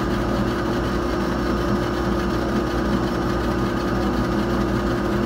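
Laser engraving machine running steadily while engraving a glass bottle held on a rotary attachment, its laser head shuttling rapidly back and forth. A steady mechanical hum with a constant higher whine.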